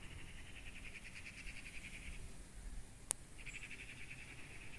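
Faint insect stridulation, a fast pulsed trill in two bursts of about two seconds each. A single sharp click falls between them, about three seconds in.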